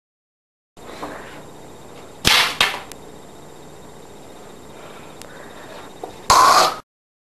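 Sharp hits, two about a third of a second apart, then a louder half-second noise near the end. The sound cuts out abruptly just before and after.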